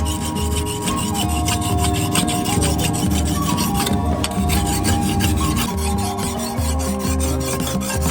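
Hand file rasping in quick strokes on a steel cutlass blade, sharpening it, over background music with held notes and a pulsing low beat.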